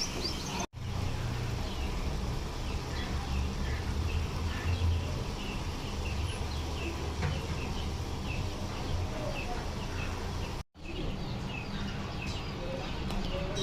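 Small birds chirping over a steady low hum. The sound drops out completely twice, about a second in and again about ten seconds later.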